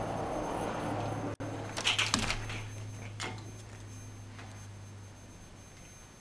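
Steady outdoor ambience through an open deck door, with a low hum, breaks off a little over a second in. A handful of sharp clicks and knocks follow about two seconds in, and one more near three seconds. Then only quiet indoor room tone remains.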